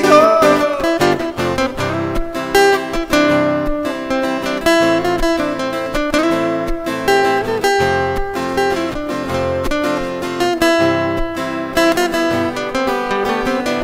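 Instrumental break of a song: guitar playing a melody with sliding notes over strummed acoustic guitar chords and a steady beat.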